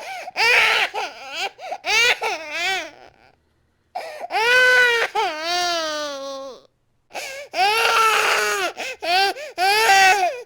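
Infant crying hard in repeated high-pitched wails, in three bouts with short breaks for breath; the middle bout is one long wail that drops in pitch at the end.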